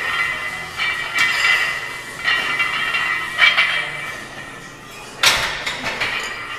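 Loaded barbell and iron plates clinking and rattling in a power rack during a heavy box squat, with one sharp metal clank, the loudest sound, a little past five seconds in.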